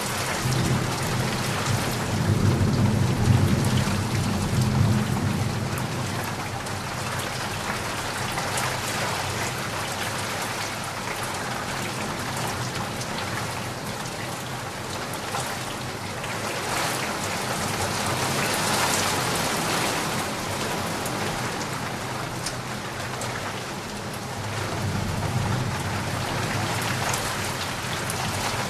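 Steady rain falling, with a low rumble of thunder rolling in a few seconds in and again near the end.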